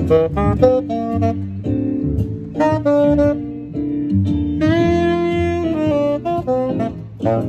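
Tenor saxophone played live: a jazz line of short phrases, with one note held for about a second around the middle.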